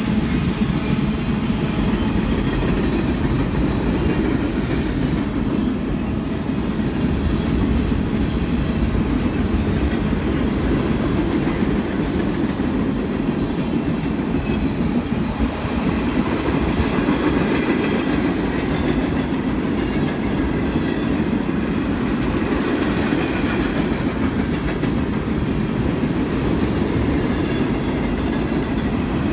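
Union Pacific freight train's cars rolling past in a steady, continuous rumble, with wheels clattering over the rails.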